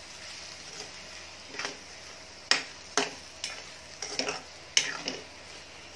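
Spatula stirring potatoes through thick masala in a stainless steel pan, knocking and scraping against the metal in irregular sharp clicks, the loudest about halfway through and near the end, over a faint sizzle.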